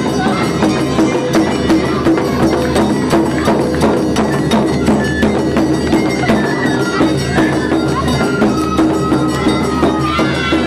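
Live Awa Odori festival music: bamboo flutes playing a held, piping melody over drums and other percussion beating a steady rhythm, with crowd voices underneath.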